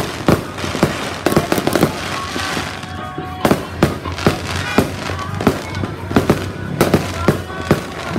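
Fireworks going off: a rapid, irregular string of sharp bangs, a few every second, with crackling between them.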